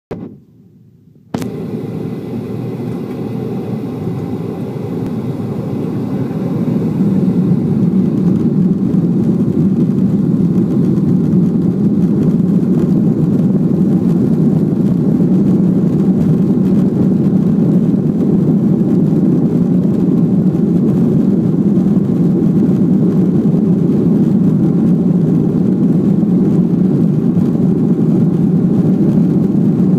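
Boeing 737-400's CFM56-3 jet engines heard from inside the passenger cabin during the takeoff roll: a steady low roar. It starts abruptly about a second in, grows louder over the next several seconds, then holds steady.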